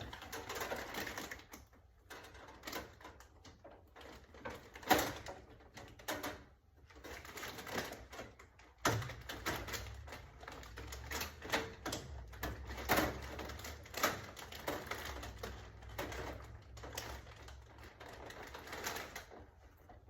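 Irregular clicking, tapping and rattling of small hard parts as a vending machine is worked on by hand. A low hum comes in about nine seconds in.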